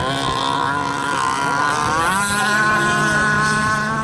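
Radio-controlled speedboat motor running at high speed, a steady whine that rises in pitch about halfway through as the boat skims across the water.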